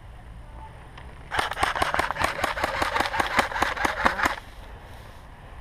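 AK-style airsoft electric rifle firing one sustained full-auto burst of about three seconds: a rapid, even string of sharp shot clicks over the whir of the gearbox motor, starting a little over a second in and stopping abruptly.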